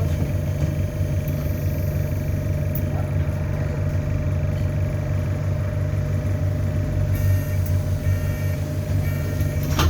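Interior sound of an ADL Enviro400 Hybrid double-decker bus under way: a steady low engine drone with a thin, steady whistle above it, the turbo whistle the recording is named for. A few short beeps come in near the end.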